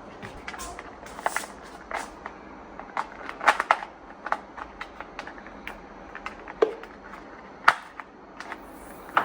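Electric kettle and its base being handled and set in place: a string of irregular light clicks and knocks of hard plastic, a few of them sharper.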